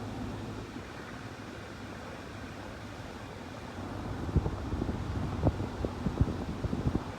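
Wind buffeting the microphone as a low, steady rumble, with irregular gusty thumps and crackles in the second half.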